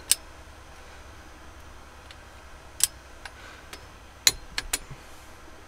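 Adjustable ratchet-head torque wrench tightening the Yanmar 2GM's cylinder head bolts, set to 48 lb-ft for the second of three passes: a few sharp metallic clicks, one right at the start, another near three seconds, and three in quick succession about four and a half seconds in.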